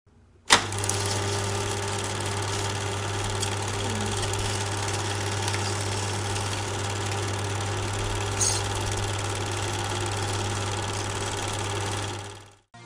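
Film projector running: a steady mechanical whirr over a low hum. It starts with a click about half a second in, has a faint brief rattle about eight seconds in, and stops just before the end.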